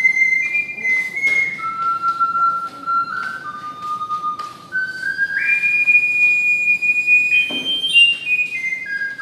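A small, high-pitched ocarina playing a slow melody of pure, held notes. A long high note comes in the middle, then a quick run of notes steps back down near the end.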